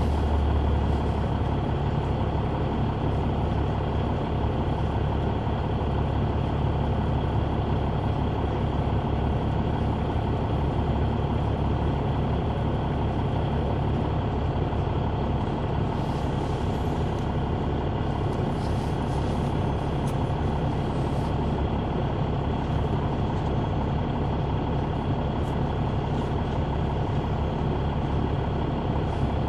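Interior sound of a 2004 Neoplan AN459 articulated transit bus with its Caterpillar C9 ACERT diesel, heard from the rear seats. The engine runs steadily at an even level, with bits of rattle and hiss about halfway through.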